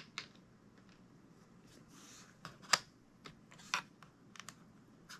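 Scattered light clicks and taps of small hand tools: a bit taken from a precision screwdriver kit, then the driver set against the laptop's metal bottom cover, with a brief rustle about two seconds in and the sharpest click a little later.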